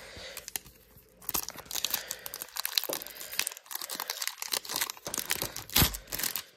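Wrapper of an Upper Deck hockey card pack being torn open and crinkled, in quick dense crackles starting about a second in, with a dull bump near the end.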